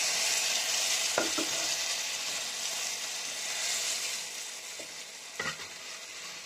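Maggi instant noodles and a pea-and-vegetable masala with a little water sizzling in a frying pan as they are stirred with a plastic spatula. The sizzle eases off a little toward the end, and the spatula knocks lightly against the pan a few times.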